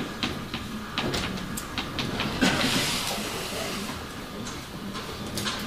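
Writing on a board: a run of sharp taps and short scrapes, with a longer scratching stroke about two and a half seconds in.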